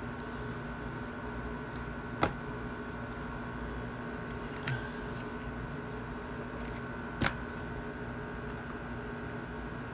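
Three short, light clicks from handling a box and a pocket digital scale on a rubber work mat, over a steady background hum.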